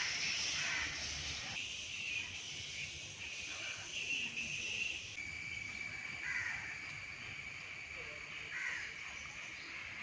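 Woodland outdoor ambience: a steady high-pitched hiss with a few short bird calls. The background changes abruptly about a second and a half in and again about five seconds in, where a thin steady high tone joins it.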